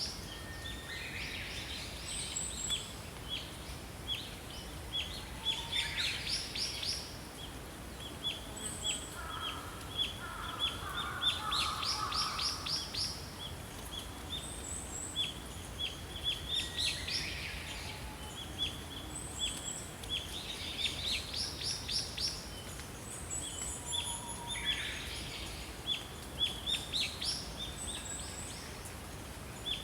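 Small songbirds chirping and singing: runs of short, high, evenly spaced chirps with fast trills every few seconds, and a lower call about ten seconds in, over a steady low background hiss.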